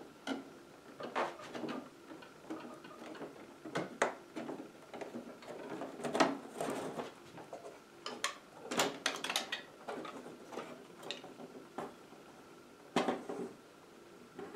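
Irregular clicks, taps and light knocks of an LCD TV's plastic and metal panel parts being handled, as the screen panel is gripped, shifted and lifted out of its frame.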